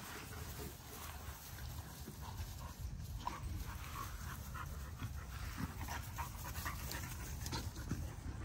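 American bully puppies panting and scuffling as they play-wrestle on grass, with a few short squeaks in the middle and a low rumble underneath.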